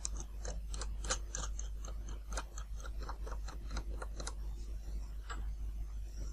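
Small metal parts clicking irregularly as a lock nut is threaded by hand onto the M3 bolt axle of a model plane's tail wheel; the clicks stop about five seconds in.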